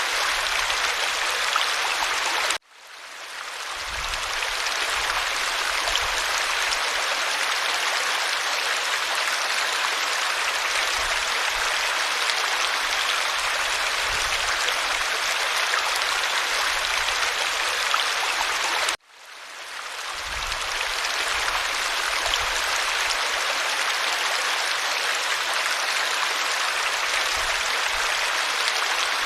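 Creek water flowing in a steady, even rush. The sound cuts out suddenly twice, about sixteen seconds apart, and each time swells back within a second or two.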